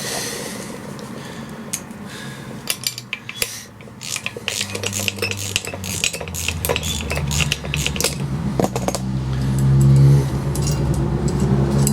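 Metal tools and parts clinking and rattling as they are handled and set down: the hub pullers and the freshly removed front hub. About halfway through a low steady hum comes in and grows louder toward the end.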